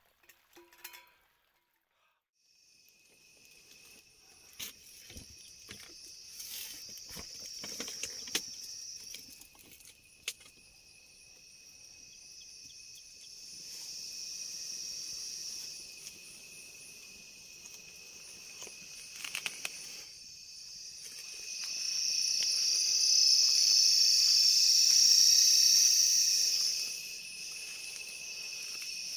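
Crickets and other insects chirring in a steady high drone with a thinner steady note beneath it, swelling louder about two-thirds of the way through. The drone starts after a moment of near silence about two seconds in. Scattered light clicks and knocks sound over it, mostly in the first third and again briefly around the middle.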